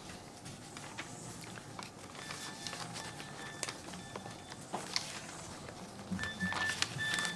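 Quiet room background with a few faint clicks and a faint high tone that comes and goes in short stretches.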